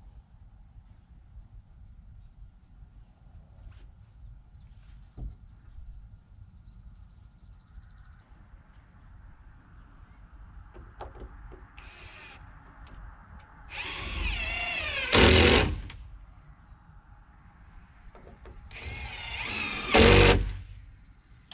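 Electric power saw cutting wood siding boards twice, each cut about two seconds long and a few seconds apart. The motor's whine drops in pitch as the blade loads into the board.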